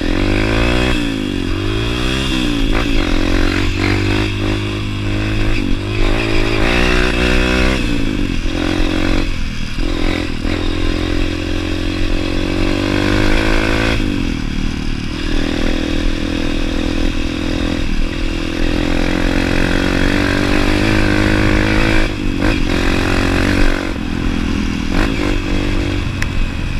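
Honda XR 200 dirt bike's single-cylinder four-stroke engine pulling along a rough dirt trail. The revs rise and fall several times in the first few seconds, then run fairly steady. Scattered knocks and rattles come from the bike going over bumps.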